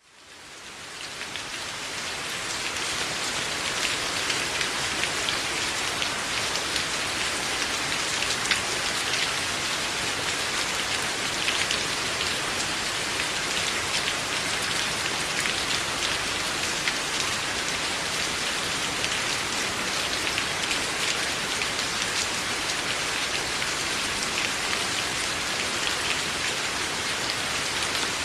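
Steady rain falling, a dense patter of many small drops, fading in over the first two or three seconds.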